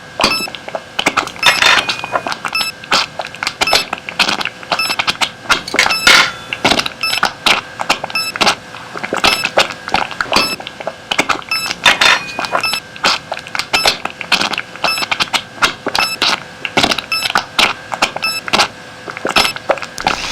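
Metal surgical instruments clinking and clattering over and over, with a faint steady hum beneath.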